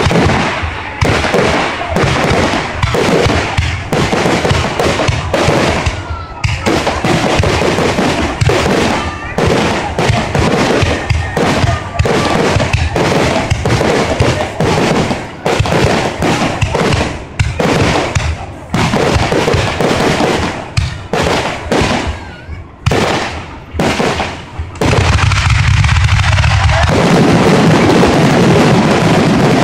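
Fireworks going off in a rapid, continuous barrage of bangs. Near the end, from about 25 s in, the bursts merge into a steady, dense din.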